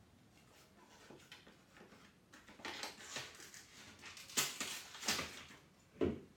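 Paper rustling and crinkling in a series of short bursts as a small child handles paper scraps at a plastic wastebasket, starting about two seconds in and growing louder. Near the end a dull knock sounds with the rustle.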